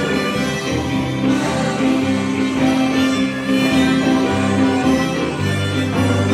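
Live country string band playing: bowed fiddle over a strummed acoustic guitar and a lap-style slide guitar, in sustained held notes.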